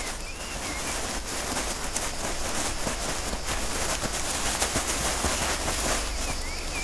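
Hermann's tortoise's hind feet scraping and pushing loose soil back over her eggs, a gritty crackling rustle of falling earth as she fills in the nest hole. A few short bird chirps come in near the start and again near the end.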